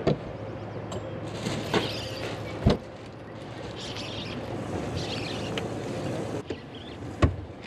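Two heavy thumps on a bass boat's deck, about two and a half and seven seconds in, over a steady low hum and a faint hiss.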